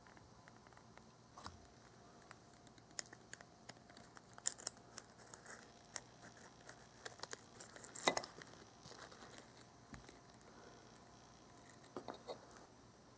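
A small spatula working under a tiny pancake in a miniature metal frying pan and flipping it, with scattered faint scrapes, crackles and light clicks. The loudest is a sharp clink a little after eight seconds, and there are two more small clicks near the end.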